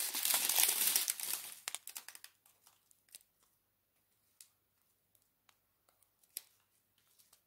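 Small plastic zip-lock bags of diamond painting drills crinkling as they are handled. The crinkling is loudest for about the first two seconds, then thins to a few faint crinkles and ticks.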